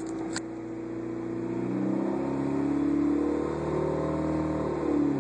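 Honda CRX's four-cylinder engine accelerating on the road, its pitch climbing for about a second and a half, holding, then falling near the end. Two sharp clicks at the very start.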